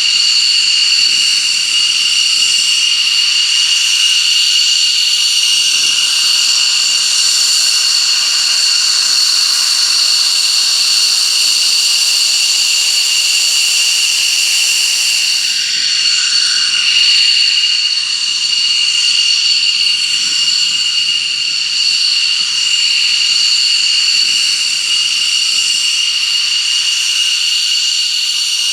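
Jet engine running steadily, a high turbine whine of several tones over a loud hiss; the whine wavers briefly a little past halfway.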